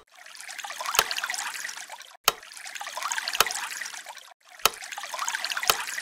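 Water trickling and splashing from the open end of a hose onto a wet concrete floor, with sharp ticks about once a second.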